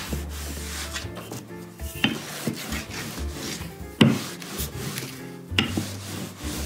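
Wooden rolling pin rolling pie crust dough on a floured silicone pastry mat: a repeated rubbing, scraping sound with each stroke. A few sharp knocks come about two, four and five and a half seconds in.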